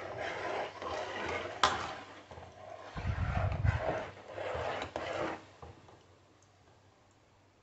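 Hot oil sizzling in an aluminium pot as dried red chillies, chana dal, urad dal, cumin and mustard seeds fry for a tempering on a switched-off stove, with a steel ladle stirring and clinking against the pot. A sharp clink about a second and a half in and a dull low thud around three seconds in; the sizzling dies down about five seconds in.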